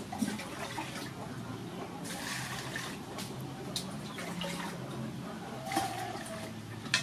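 Water splashing and sloshing in an aluminium basin as hands wash chopped green onion and a metal bowl is dipped and lifted. There are a few sharp metallic clinks, one just after the start, one about four seconds in and one at the end.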